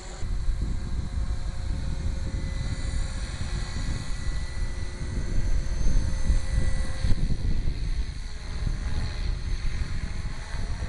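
HK450GT 450-size electric RC helicopter flying at a distance, its motor and rotors a faint steady whine, under a loud, uneven low rumble.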